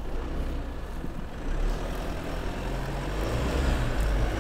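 Mitsubishi Pajero Sport's engine pulling in low range as the SUV drives up an off-road slope without the locking differentials, getting louder about one and a half seconds in and again near the end.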